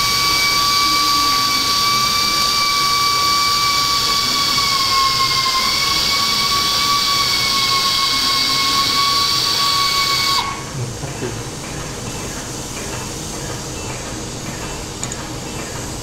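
Powered surgical wire driver spinning a 2 mm Kirschner wire into the ankle bone: a steady high whine with hiss, its pitch sagging slightly about halfway as it bites. It cuts off suddenly about two-thirds of the way through.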